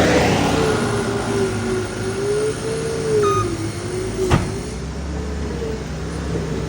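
Skid steer running while it works soil: a steady engine rumble with a whine that rises and falls slowly as the load changes, and one sharp knock about four seconds in.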